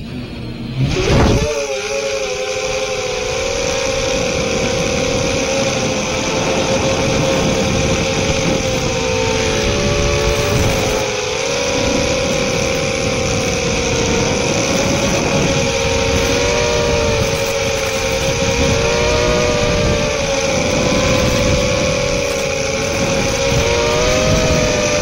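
Small FPV quadcopter's brushless motors and propellers spinning up sharply about a second in, then a steady whine that wavers in pitch with the throttle, over a constant hiss.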